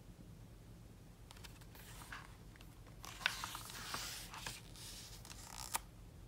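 A page of a hardcover picture book being turned by hand: faint paper rustling that builds toward the middle, with two sharp paper snaps, one about three seconds in and one near the end.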